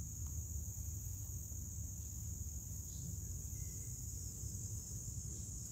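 A steady, high-pitched chorus of crickets over a low outdoor rumble.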